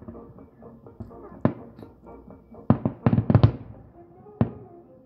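Aerial fireworks shells bursting: a single bang about a second and a half in, another just before three seconds, then a quick run of several bangs, and one more about a second later.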